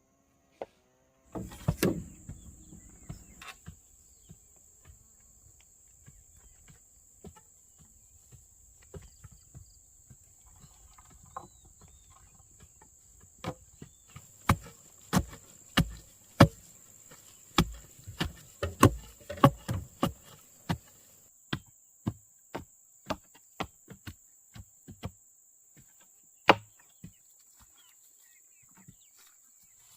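A steady high-pitched insect drone that starts about a second in, with repeated sharp blows on wood. The blows come thickest and loudest through the middle and later part, about one or two a second.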